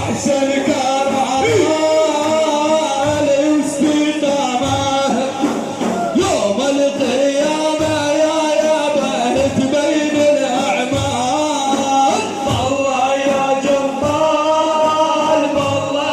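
Male voice singing a religious praise chant in long, wavering melismatic lines, over low drum beats about once a second.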